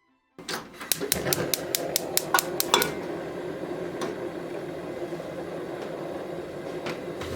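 Quick run of light clicks and taps of kitchen utensils on cookware, about five a second, then a steady even hiss, like a stove burner or range fan, through the rest.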